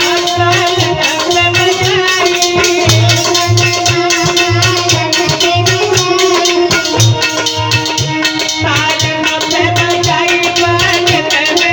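Indian devotional bhajan music in an instrumental passage: a sustained melody instrument holding and bending notes over a steady, repeating hand-drum rhythm, with rattle-like percussion clicking throughout.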